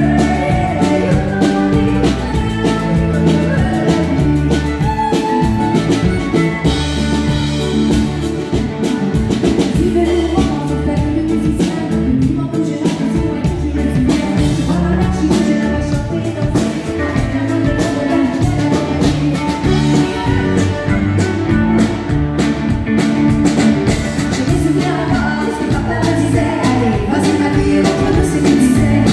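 A woman singing live into a microphone, backed by a country band with electric guitar and drums, amplified through a PA.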